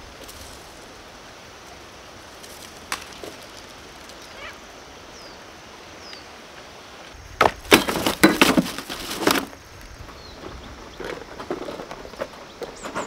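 A burst of loud clattering knocks lasting about two seconds, starting around the middle, with a few lighter knocks near the end, over a steady outdoor hiss and a few faint bird chirps.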